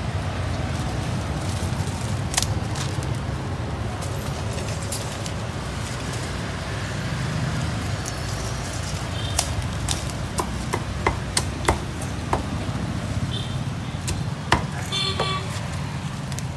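Cleaver chopping roast pork: sharp, irregular knocks, a few a second, mostly in the second half, over a steady low rumble of street noise.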